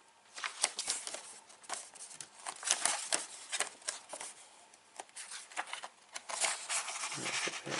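Pages of a tabbed paper folder being flipped and handled: irregular rustling with sharp paper crackles and snaps.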